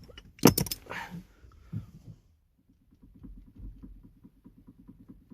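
A couple of sharp clicks and a knock as a screwdriver wedge is pulled out of the Toyota Estima's electric power steering unit. From about halfway through comes a fast run of light knocks from the steering as the wheel is rocked: the steering knock, back now that nothing holds the part under the cap still.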